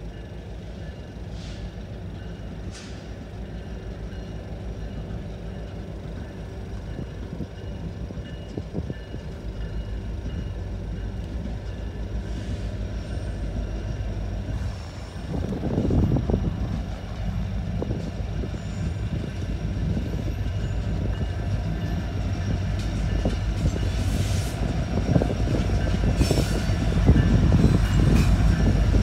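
Two Canadian National diesel locomotives leading a freight train, a low rumble growing steadily louder as they approach and pass, with a few sharp clanks in the second half.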